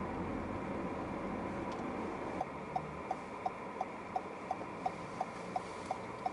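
Steady car-cabin noise from the engine and tyres on the road; about two and a half seconds in, the turn-signal indicator starts clicking, an even tick roughly three times a second.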